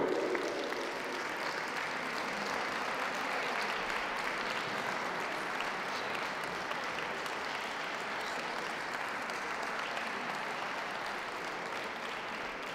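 Audience applauding steadily in a large show hall, easing off slightly near the end.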